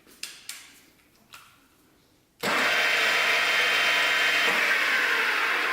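A few light clicks, then a machine tool starts running abruptly about two seconds in: a loud, steady, high-pitched whirring and hissing noise.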